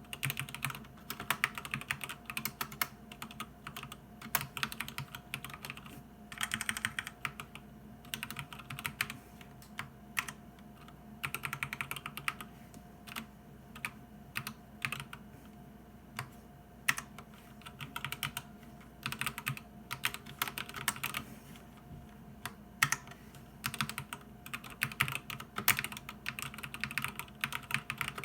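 Typing on a SteelSeries Apex Pro mechanical keyboard with OmniPoint magnetic switches: rapid key clicks in bursts of a second or two with short pauses, and now and then a single louder clack.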